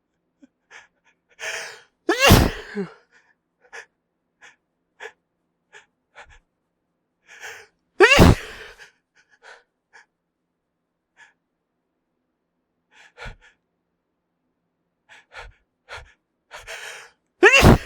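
A man sneezing hard three times, each sneeze preceded by short hitching gasps as it builds up: about two seconds in, about eight seconds in, and right at the end.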